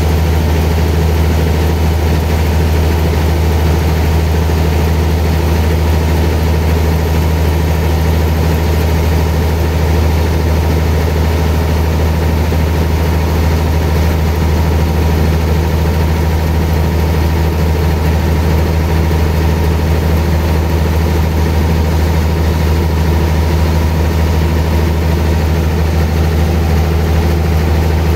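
Sawmill machinery running steadily, with a loud, unchanging low hum.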